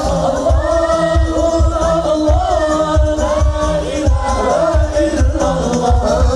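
Sholawat, Islamic devotional singing, performed live: sung melody with a chorus, over hadrah frame drums keeping a fast, steady beat.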